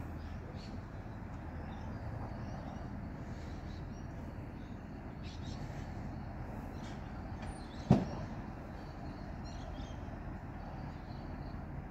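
Recycling garbage truck running steadily some way off, with one sharp bang about eight seconds in.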